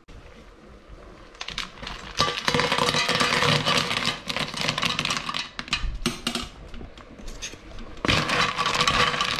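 Raw cockles tipped from a mesh strainer into a steel pot, the shells clattering against each other and the pot. Near the end they are stirred with a wooden spoon, and the shells rattle again.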